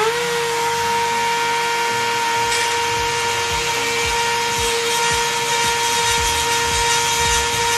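Dremel rotary tool with a grinding stone spinning up and then running at a steady high whine, grinding out a drilled hole to widen and clean it.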